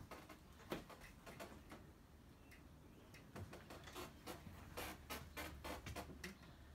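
Faint, scattered clicks and taps over a low steady hum, with a run of louder clicks about five to six seconds in: footsteps and the small knocks of someone walking through the room with a phone.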